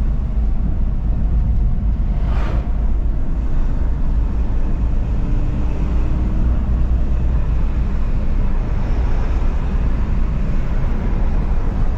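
Volkswagen Polo's three-cylinder diesel engine and road noise while driving: a steady low rumble with one brief knock or rustle about two and a half seconds in. The engine runs smoothly with no knock, its injector fault dealt with.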